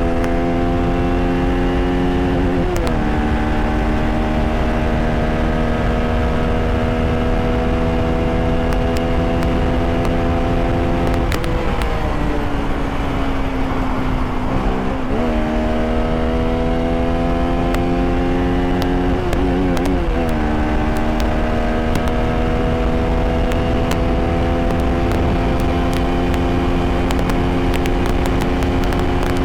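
Bajaj Pulsar RS200's single-cylinder engine, fitted with a K&N air filter, pulling under load while riding. The engine note climbs slowly and steadily, dips briefly about three seconds in and again about twenty seconds in, and sags for a few seconds near the middle before rising again.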